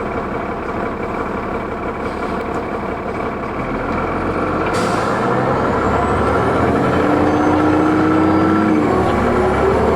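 2004 New Flyer D40LF bus's Cummins ISL diesel running steadily, then a short air hiss about halfway through. The engine pulls away with its turbo whine rising in pitch and the sound growing louder. Near the end the engine pitch drops back, as at an upshift of the ZF Ecomat automatic.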